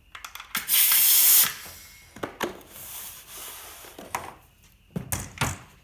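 Air hose quick-connect coupler being snapped onto a pneumatic framing nailer's air inlet: a loud burst of hissing compressed air lasting just under a second, then a fainter hiss and several knocks and clunks as the coupling and tool are handled.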